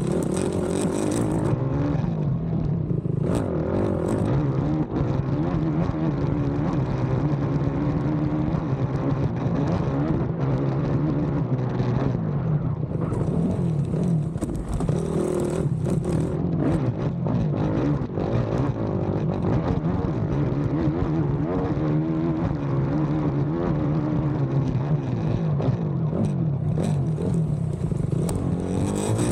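Race ATV engine heard on board, its revs rising and falling continually as the quad is ridden hard over a rough cross-country track, with scattered knocks and rattles from the bumps.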